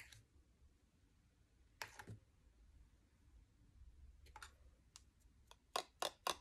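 Light clicks of a plastic spoon and a paper cut-out against a small plastic box of embossing powder: a few single clicks, then a quick run of taps, about four a second, near the end as the powdered cut-out is tapped to shake off the excess.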